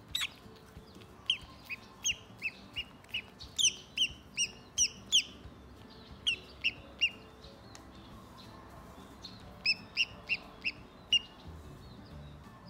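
Newly hatched duckling peeping: short, high, downslurred peeps in runs, a quick string of about a dozen, then three more, then a last run of five near the end.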